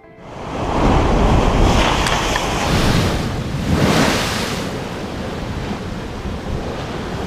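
Heavy sea waves breaking against a seawall, a loud rush of surf and spray with wind buffeting the microphone. The wash swells in, surges about two seconds in and again, strongest, about four seconds in, then settles into a steadier rush.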